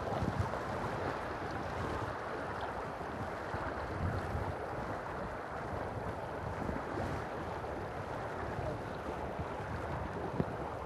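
Steady rush of river current flowing over a riffle, with low buffeting of wind on the microphone now and then.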